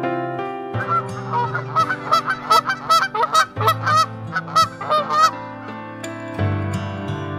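A rapid run of honking waterfowl calls, about three a second, from about a second in until about five seconds in, over soft background music.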